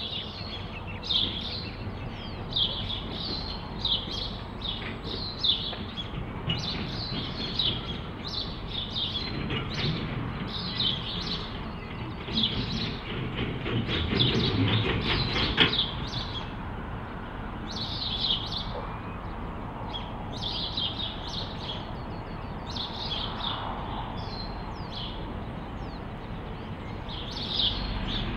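A songbird chirps a short phrase over and over, about once a second, over the low rumble of distant EMD G22AR diesel locomotives. The rumble swells with some rattling through the middle, then rises again near the end as the locomotive throttles up to depart.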